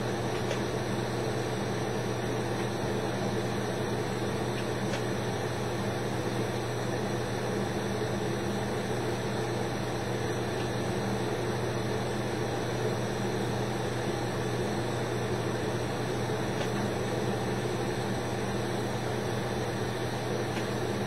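Steady hiss and hum of a lampworking glass torch burning at the bench, with a few faint ticks.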